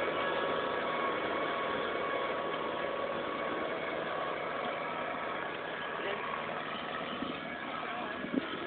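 Kubota M7040 tractor's four-cylinder diesel engine running steadily under load as it pulls a three-disc plough through the soil, slowly fading as the tractor draws away. A brief knock near the end.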